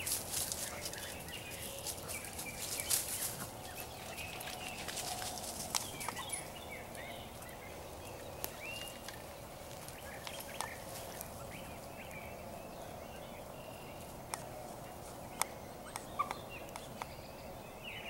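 Wild birds chirping and calling repeatedly, with scattered sharp snaps and rustles of twigs and leaf litter underfoot.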